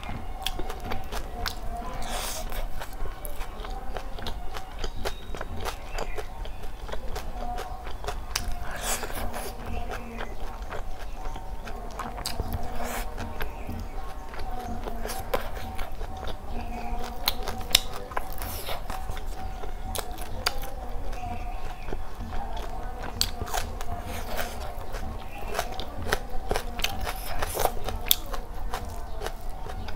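Close-miked eating: chewing and wet mouth smacks while fingers squish and mix curry-soaked rice on a steel plate, giving many short clicks and squelches. A steady tone runs underneath.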